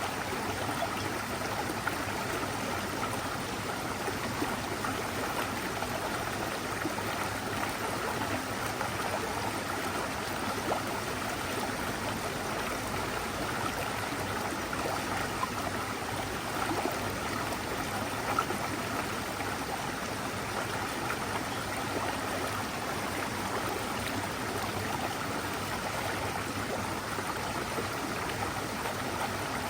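Mountain stream running steadily: an even, unbroken rush of flowing water.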